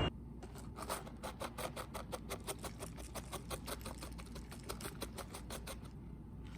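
A rapid, even run of light clicks or taps, about five or six a second, stopping near the end.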